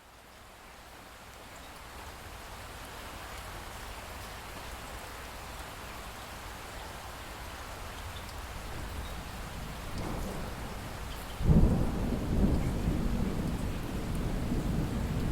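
Steady rain hiss fading in and building over the first few seconds, then a loud rumble of thunder breaking in about eleven seconds in and rolling on.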